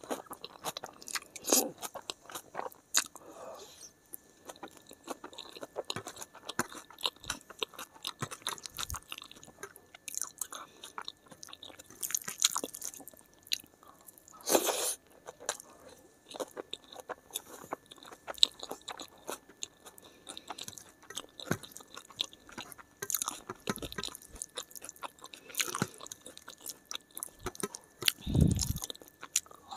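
Close-miked mouth sounds of a person eating rice and curry by hand: irregular wet chewing with crisp crunches. A low thump comes near the end, as the hand works food on the plate.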